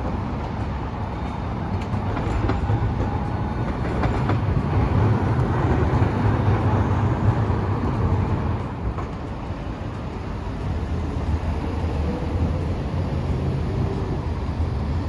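Hiroshima Electric Railway streetcar running on street track with a steady low rumble of wheels and motors. It grows louder a couple of seconds in and eases off around the middle, with a faint high whine over it.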